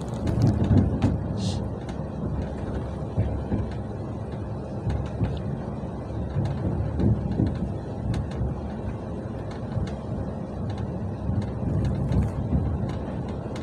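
Moving train heard from on board: a steady low rumble of wheels on the rails with scattered clicks and knocks.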